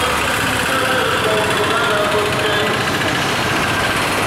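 Busy road traffic at close range: a bus engine running as the bus creeps through the junction, with other vehicles and voices mixed in.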